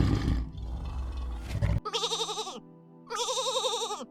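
A leopard growls low and rough, cut off abruptly a little under two seconds in. Then an animal bleats twice with a shaky, wavering pitch.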